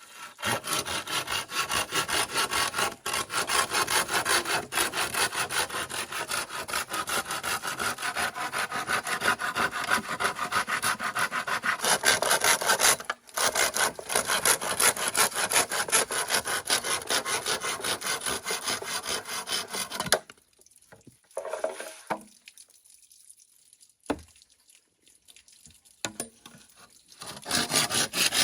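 Hand saw cutting through bamboo with quick, steady back-and-forth strokes. The sawing stops about two-thirds of the way in, leaving a few faint knocks, and starts again near the end.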